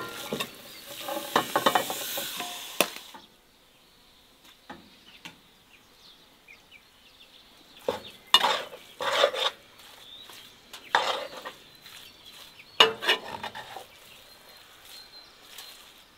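Ground meat frying in a cast-iron skillet, sizzling for the first few seconds until it cuts off abruptly. Then a metal spoon stirs and scrapes the mince in the pan in short bursts of clicks and scraping.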